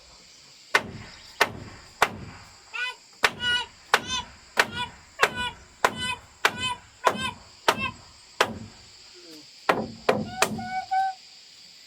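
Hammer blows, about fifteen in a steady rhythm, many of them with a short metallic ring. There is a brief pause about nine seconds in, and the blows stop about a second before the end.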